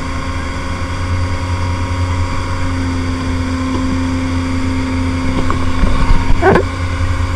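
Motorboat engine running steadily at speed while towing a parasail, a constant low drone with a steady hum over it. A short wavering cry cuts through about six and a half seconds in.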